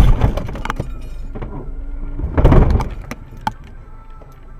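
Dashcam car's cabin and road noise with two loud, low rushes, one at the start and one about two and a half seconds in, and scattered sharp knocks between them as the car brakes for a dump truck cutting across its path. The noise drops off after about three seconds as the car slows almost to a stop.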